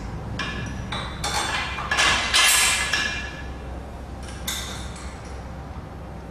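Steel frame parts of a Powertec Compact Leg Sled knocking and clinking together during assembly, as the backrest is fitted and bolted on: a run of sharp metallic knocks in the first three seconds and one more ringing clink about four and a half seconds in.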